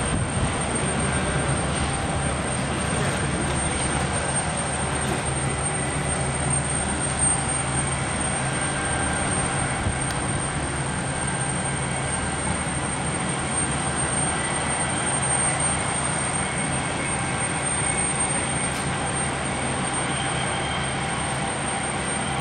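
Turbofan engines of an airliner taxiing at low power: a steady, even engine noise with a faint high whine over it.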